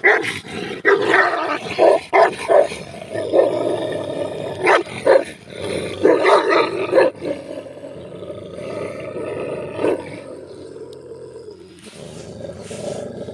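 Two Kangal dogs fighting, growling and barking in short, loud outbursts. After about seven seconds this settles into a steadier, drawn-out growl that swells again near the end.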